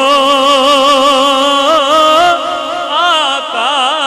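A man's solo voice singing a naat without instruments. He holds one long wavering note, steps up in pitch about two seconds in, and adds quick melismatic turns near the end.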